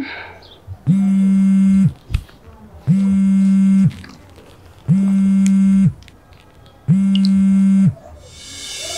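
Mobile phone ringing for an incoming call: four low, buzzy one-second rings about two seconds apart.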